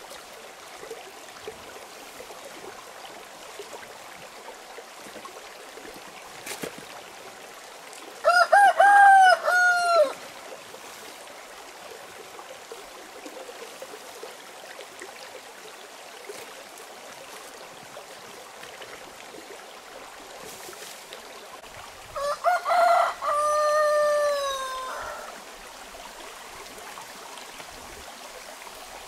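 A rooster crowing twice, once about eight seconds in and again some fourteen seconds later, each crow two to three seconds long and falling in pitch at its end. Between the crows a stream rushes steadily.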